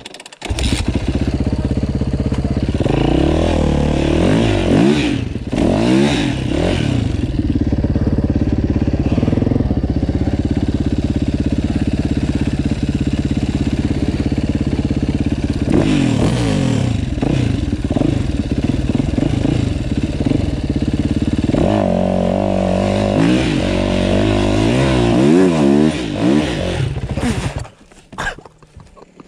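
Yamaha dirt bike engine revving up and down as it is ridden, its pitch rising and falling again and again. The sound drops away about a second and a half before the end.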